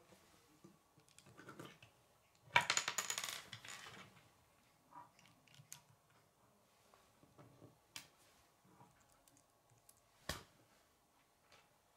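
Small plastic K'nex pieces clattering together in a dense rattle a few seconds in, then scattered clicks as pieces are handled and snapped together, with one sharper knock near the end.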